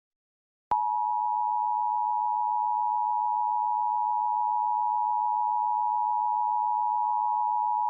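Emergency Alert System attention signal: the two-tone alert (853 and 960 Hz sounded together) starts with a click under a second in, after a short silence, and holds one steady, unchanging tone. It marks the start of an EAS required monthly test, ahead of the spoken test message.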